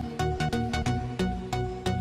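Electronic background music with a steady, even beat and a pulsing bass line.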